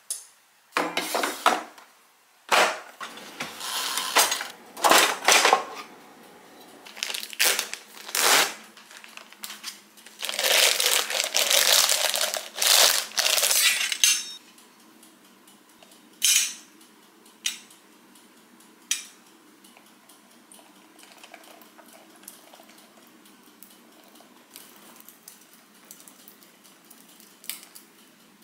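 Kitchen prep handling sounds: a busy run of clattering and rustling as dishes, utensils and food are handled, with one longer noisy stretch. After that it goes much quieter, with a few light clicks of metal utensils.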